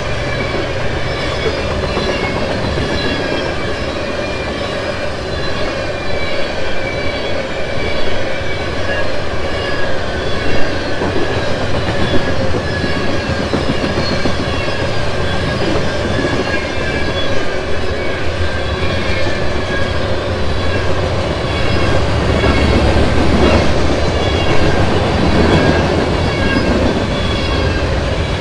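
Freight train passing close by: the wheels of covered hoppers and boxcars rumble and clack over the rail joints. Thin, high, wavering squealing tones from the wheels run over the steady roar, with a few louder knocks about eight and ten seconds in.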